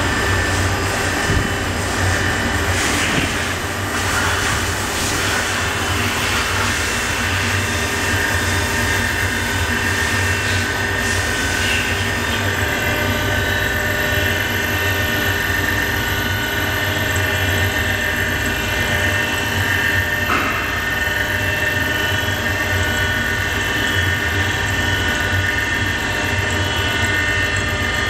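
Kia SKT-21LM CNC turning center running a live-tool milling cut: a small end mill in the turret's powered spindle cuts into a metal ring held in the chuck. The machine gives a steady whine of several held tones, with a rougher cutting noise over the first dozen seconds.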